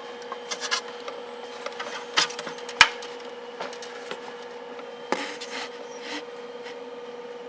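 Handling noises of small 3D-printed plastic parts on the printer's bed: scattered scrapes, rubs and taps, with one sharp click a little under three seconds in, over a steady hum.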